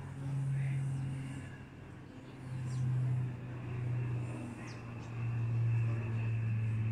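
A low, steady engine hum that swells and fades several times.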